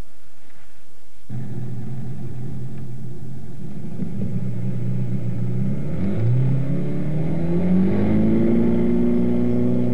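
Car engine running, coming in abruptly about a second in, then revving up as it pulls away: its pitch rises from about six seconds in and holds at the higher note.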